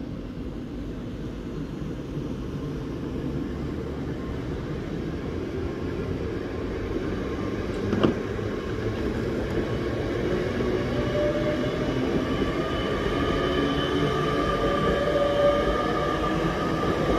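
GWR passenger train running past on the far track, its rumble growing steadily louder. There is a single sharp click about halfway through, and a whine that rises gently in pitch sets in about two-thirds of the way through.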